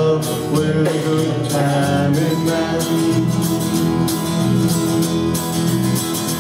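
Live country band playing the closing bars of a song on acoustic guitar, electric guitar and electric bass.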